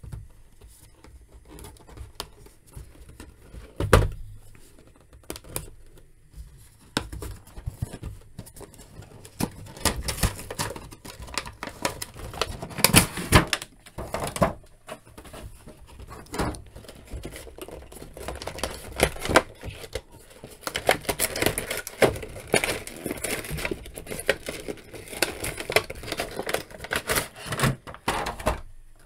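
Action-figure packaging being opened by hand: cardboard boxes and clear plastic blister trays sliding, crinkling and clicking. There is a single thump about four seconds in, and the handling grows busier and louder from about ten seconds on.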